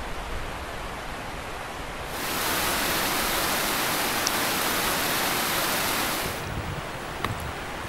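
Rushing water of a waterfall and mountain stream, a steady hiss that grows louder and brighter for about four seconds in the middle before falling back.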